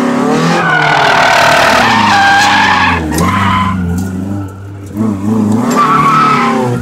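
Mazda Miata's four-cylinder engine revving hard through a drift, the pitch rising and falling with the throttle, with tires squealing as the car slides. Heard from inside the cabin. The engine drops away briefly past the middle of the slide, then picks up again.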